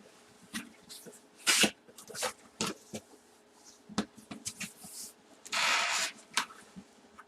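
Cardboard box packaging being handled and opened: scattered clicks and taps, with a short loud rustling burst about a second and a half in and a longer one near six seconds.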